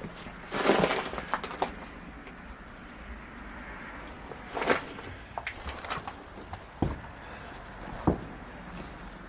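People moving about on an old wooden barn floor: a scrape about a second in, then scattered knocks and two low thumps near the end.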